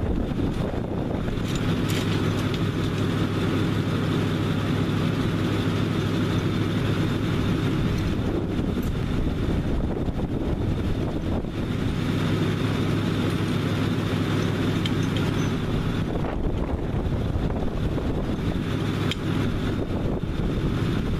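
A vehicle engine idling steadily, its hum fading back a little for a few seconds in the middle.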